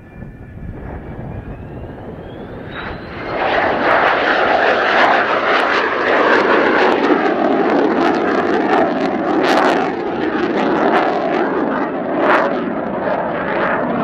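Mitsubishi F-2's single F110 turbofan: a high whistling whine that rises in pitch as the engine spools up, then, about three and a half seconds in, a loud jet roar as the fighter powers up after a touch-and-go and climbs away.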